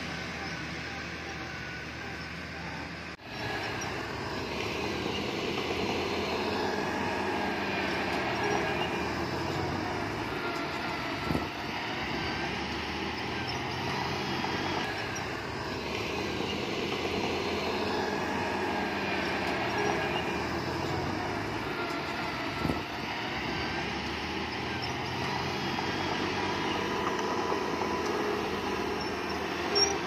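Heavy diesel earthmoving machinery running steadily at a work site, with a few sharp knocks about 11, 23 and 30 seconds in and a brief drop in sound about 3 seconds in.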